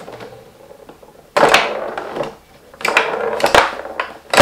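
Tabletop foosball game being played: clattering rods and sharp clacks of the ball striking the wooden players and sides. The knocks come in quick clusters, about a second and a half in, around three seconds, and again near the end.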